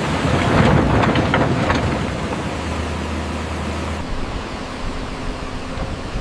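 Excavator engine running steadily, with a louder burst of scraping and rattling in the first two seconds.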